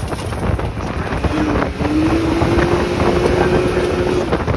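Wind buffeting the microphone, a loud rumbling rush, with a steady droning tone that comes in about a second in and stops shortly before the end.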